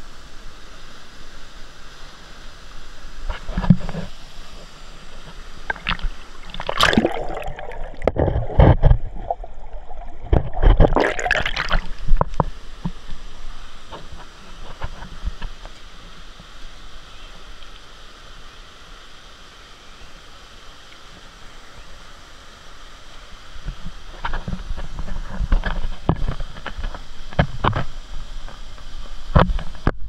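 Rushing water of a waterfall and its plunge pool close to the camera, with loud irregular splashing and sloshing as a swimmer moves through the water: a cluster of bursts about a third of the way in, then quieter, and more splashing near the end as he climbs out onto the rocks.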